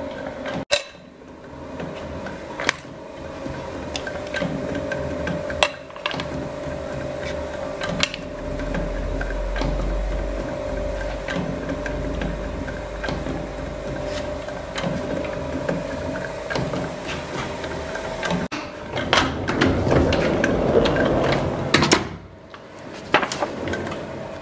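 Letterpress proof press and type forme being worked: a steady machine hum under scattered metallic clicks and knocks, with a louder, busier stretch of mechanical noise about two-thirds through. The sound breaks off abruptly a few times.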